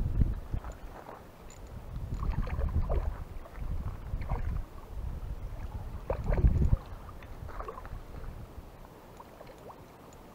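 A hooked rainbow trout splashing and thrashing at the water's surface near the bank as it is played on a spinning rod, in irregular bursts, with wind buffeting the microphone.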